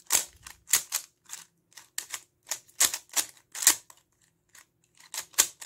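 Rubik's cube layers turned quickly with finger tricks: a rapid, uneven run of plastic clicks and clacks, about three a second.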